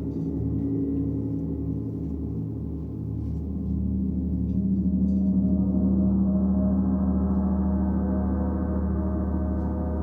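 Gong ringing: a sustained cluster of many overlapping, slowly pulsing tones that swells about three and a half seconds in, one strong low tone coming to the fore.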